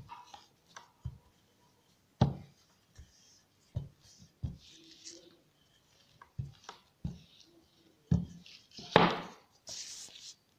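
Rolling pin working a thin sheet of dough: a series of sharp, irregular knocks as the pin is pressed and bumps the work surface, loudest about two seconds in and near the end, with soft rubbing and scraping of the dough between them.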